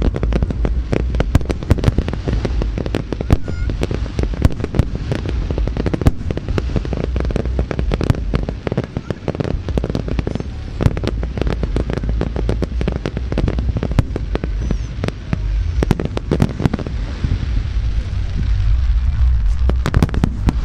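Fireworks display: aerial shells bursting in a rapid, continuous string of sharp bangs over a low rumble.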